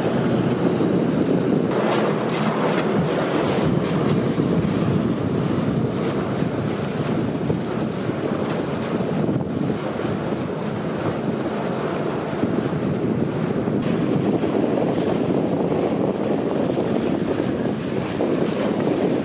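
Steady wind noise on the microphone over the rush of water along the hulls of a sailing catamaran under way.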